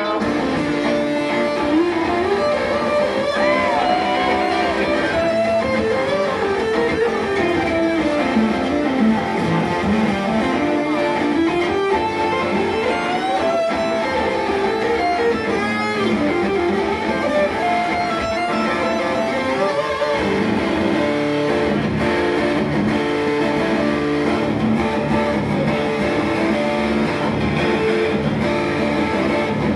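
Acoustic guitar played live as an instrumental lead passage, its melody notes bending and sliding up and down over ringing chords.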